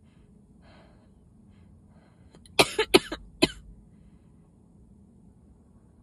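A person sneezing three times in quick succession, after a couple of faint breaths in. It is part of a sneezing fit brought on by dust on top of illness.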